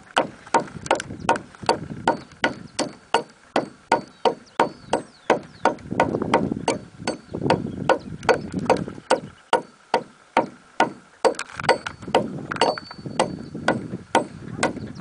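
Hatchet chopping into a round wooden pole in quick, light strokes, about three a second, shaving down the end of a log brace so it fits snugly against the next pole.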